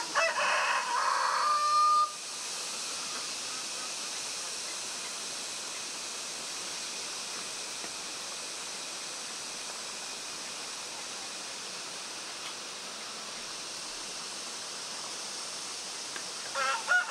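A rooster crows loudly for about two seconds, ending on a held note, and starts crowing again near the end. In between there is only a steady background hiss.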